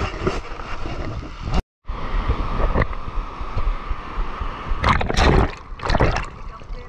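Sea water sloshing and washing around a camera held at the waterline by a wader in the surf, with wind on the microphone; the biggest washes of water come about five and six seconds in. The sound drops out completely for a moment just before two seconds in.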